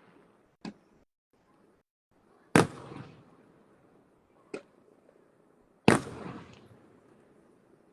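Fireworks shells bursting overhead: four bangs, a small one, then a loud one, another small one, then another loud one. Each loud bang trails off over about a second.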